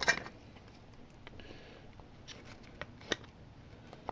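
Handling noise: a sharp click at the start, a few light ticks, a brief soft rustle and another sharp click about three seconds in.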